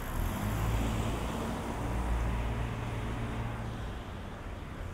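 A car driving past on the street, a low engine hum that swells about a quarter second in and fades after about four seconds, over steady street noise.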